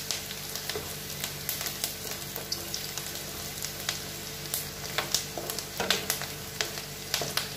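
Chopped onions, green chillies and sesame seeds sizzling in mustard oil in a black kadai, being lightly sautéed and not browned. A wooden spatula stirs them, with scattered clicks and scrapes against the pan over the steady sizzle.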